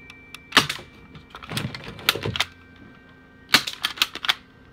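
Airsoft pistol firing, several sharp snaps with quick clicks and rattles after them, coming in about four groups spread across a few seconds.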